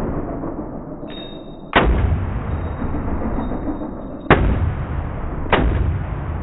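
Three gunshots, about 1.8, 4.3 and 5.5 seconds in, each sharp crack followed by a long low rumble that dies away.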